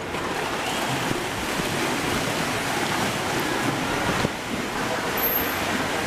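Pool water splashing and churning as dolphins swim fast along the pool wall: a steady rushing wash, with one sharp knock about four seconds in.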